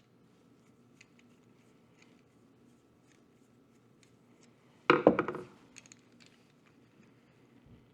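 Small parts and tools handled on a work surface: faint scattered clicks, then about five seconds in, one brief loud clatter with a short rattle, as of a small hard object set down or dropped.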